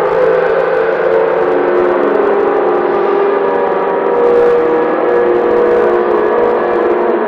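Distorted, reversed soundtrack: a dense, steady drone of many layered sustained tones with no speech and no clear beat.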